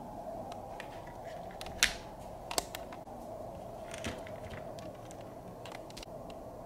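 Small plastic toy pieces being handled, giving scattered clicks and taps with a sharp click about two seconds in, over a steady low hum.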